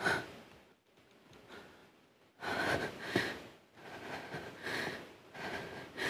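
A woman crying: gasping, sniffling breaths that come in uneven bursts, growing stronger from about halfway in.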